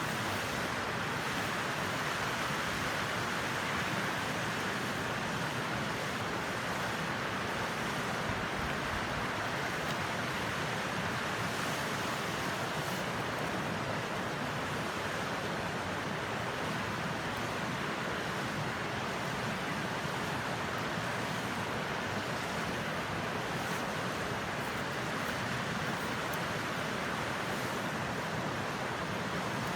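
A wood fire burning in a lidded BBQ grill: a steady rushing hiss with a few faint pops.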